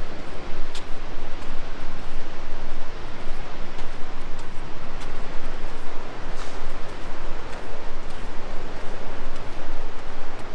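Rushing whitewater in a gorge river: a loud, steady rush of water with scattered faint ticks.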